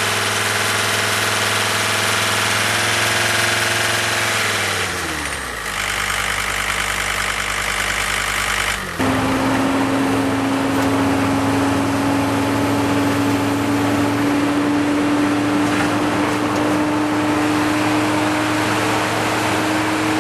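Diesel engine of a John Deere 329D compact track loader running steadily, then slowing down about five seconds in. Near the middle the sound changes abruptly to engine hum with a strong steady whine that rises slowly in pitch.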